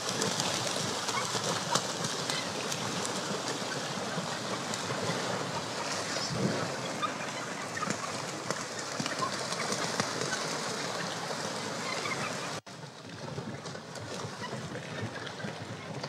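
Splashing sea noise with a constant crackle of many small splashes, as gannets plunge-dive into a bait ball. The sound drops suddenly about twelve and a half seconds in, then goes on more quietly with scattered splashes.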